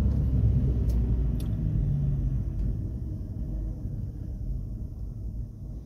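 Car engine and road rumble heard from inside the cabin while driving slowly, a steady low rumble that eases slightly, with two faint clicks about a second in.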